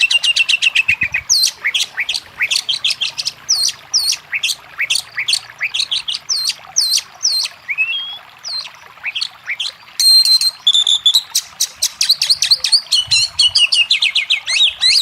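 Oriental magpie-robin (kacer) singing a fast, varied run of sharp up- and down-slurred chirps and whistles, with a short stretch of steady held high whistles about two-thirds of the way through.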